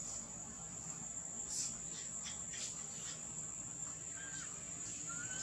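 Steady high-pitched drone of insects such as crickets, with a few faint clicks in the middle and two short chirping calls near the end.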